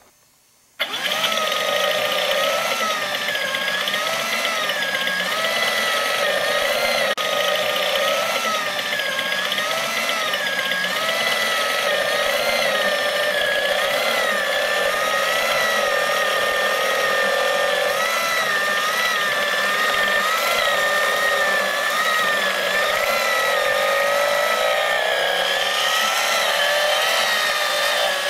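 Small electric motor and plastic gear train of a motorized BMW R90S boxer-engine model kit running, starting suddenly about a second in and whirring steadily. Its pitch wavers up and down about once a second as the turning mechanism loads and unloads the motor.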